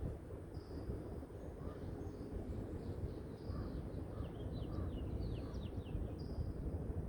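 Songbirds chirping over a steady low rumble of wind and distant city noise: a few short high whistled notes, and a quick run of descending chirps in the middle.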